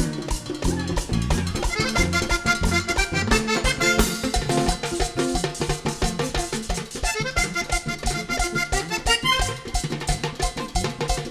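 Instrumental passage of a live vallenato band: accordion playing runs of short, quick notes over a busy rhythm of drums and hand percussion.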